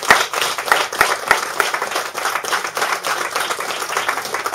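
Audience applauding: a dense run of hand claps that gradually thins.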